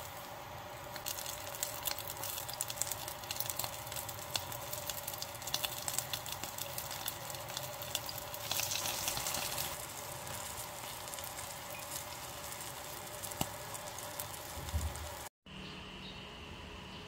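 Small whole fish frying in hot oil in a pan: a steady sizzle with frequent crackling pops, which grow busier about eight seconds in as more fish go into the oil. It cuts off suddenly near the end.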